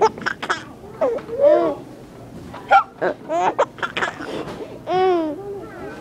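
A young baby giggling in short bursts of high, squealing laughter, set off by an adult's hiccups; several short sharp hiccups fall between the giggles.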